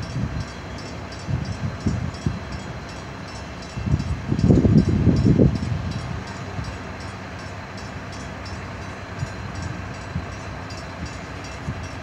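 Low, uneven rumble and buffeting over a steady background hum, loudest from about four to five and a half seconds in, with a faint high ticking about three times a second, at a drawbridge as its road gates lift.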